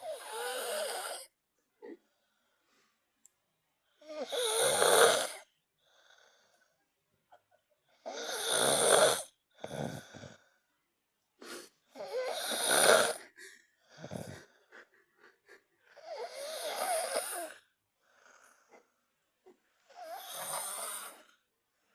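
Snoring in a steady rhythm: one long snore about every four seconds, six in all, with a few short sounds between some of them.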